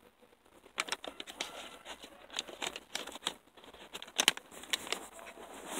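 Plastic cigarillo pack crinkling and rustling as it is handled close to the microphone, with irregular sharp clicks and crackles.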